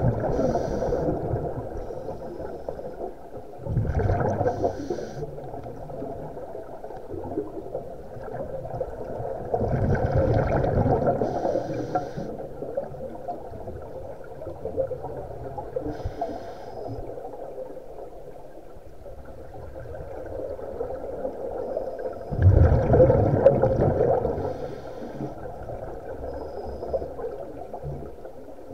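Scuba regulator breathing recorded underwater: bursts of exhaled bubbles gurgle out in four main surges, several seconds apart, over a steady muffled underwater background.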